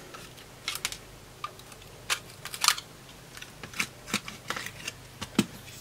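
Small screwdriver prying open the plastic case of a PLC: irregular sharp clicks and snaps as the clips release and the tool scrapes the housing, with brief scrapes between them.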